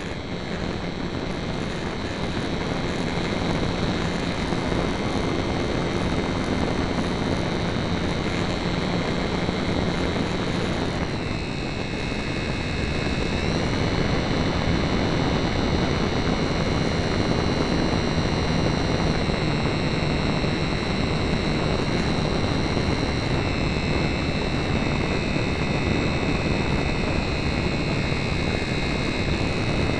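Electric motor and propeller of a HobbyZone Super Cub RC airplane running in flight, heard from a camera on board: a steady high whine over rough wind rush on the microphone. The whine dips briefly about a third of the way in, then settles at a steady pitch.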